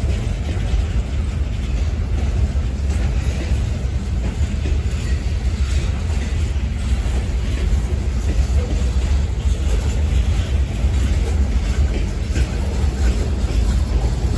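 Freight cars of a long manifest train rolling past: a steady low rumble of steel wheels on rail with light, irregular clicking.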